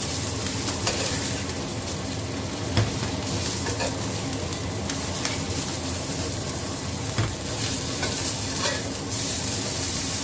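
Whole fish frying in hot oil in a wok, a steady sizzle, with a few sharp clinks of a metal utensil against the pan as the fried fish are lifted out.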